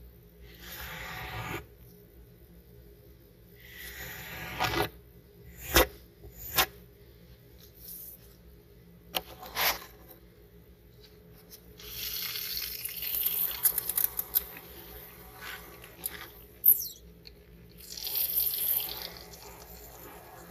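Wet soap foam being pushed and scrubbed over a miniature carpet with a tiny cleaning tool, in short squelching strokes broken by pauses, with several sharp clicks and taps; the longest, busiest stretch of scrubbing comes a little past halfway.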